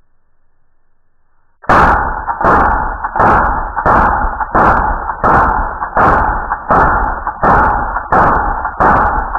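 A firearm fired in a steady rapid string of about thirteen shots, nearly two a second, starting a couple of seconds in after near silence; each shot is a sharp crack with a heavy, distorted tail that runs into the next.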